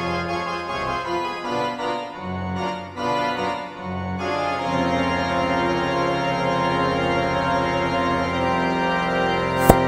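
Background music of held keyboard chords that change every second or so, with a single sharp click near the end.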